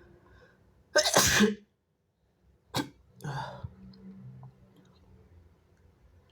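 A person's wet sneeze about a second in, loud and lasting about half a second, then a short sharp burst a second and a half later and a weaker breathy sound after it.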